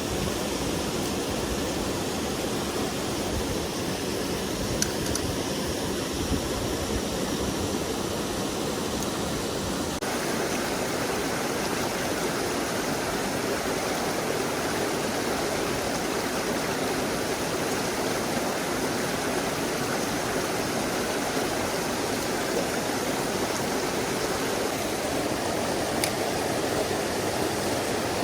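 Mountain stream water rushing and splashing steadily over rocks. The sound shifts slightly about ten seconds in.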